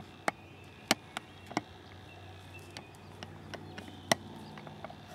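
Yearling whitetail deer walking through dry leaf litter: irregular sharp crackles and snaps of leaves and twigs underfoot, the loudest about four seconds in.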